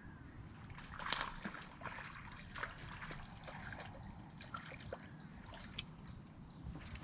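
Small-lake water lapping and sloshing against a fishing boat's hull, with irregular light splashes and knocks, the strongest about a second in.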